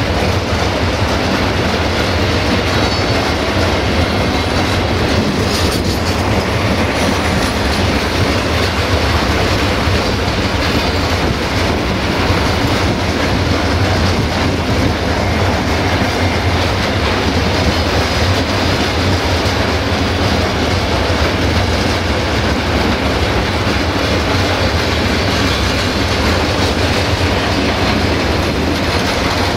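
Freight train of gas tank wagons rolling past, a steady loud rumble of steel wheels on the rails.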